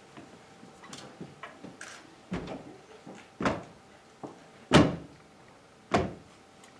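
A few separate knocks and thumps about a second apart, the loudest a little past the middle, with small ticks and clatters between them, from performers moving about and handling things on stage.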